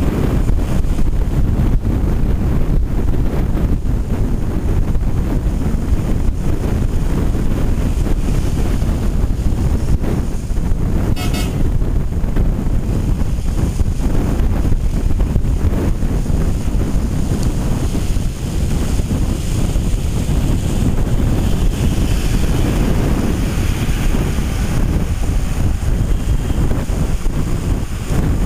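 Bus driving along a road, heard from inside: a steady rumble of engine and tyres with wind buffeting the microphone. A brief sharp sound cuts in about eleven seconds in.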